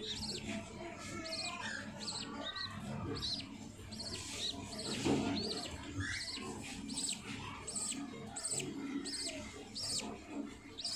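Budgerigars chirping: a steady run of short, high-pitched chirps, about two a second.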